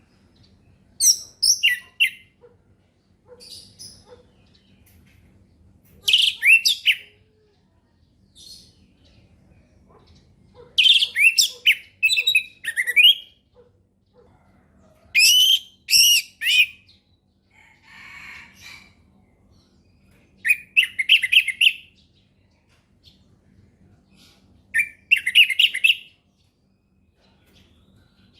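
Orange-headed thrush singing in six loud phrases of quick, high, whistled notes that slur up and down, each about a second long (one near the middle runs longer), with pauses of a few seconds between.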